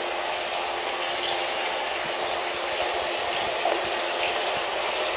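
Steady rushing noise that holds even, with no distinct knocks or tones.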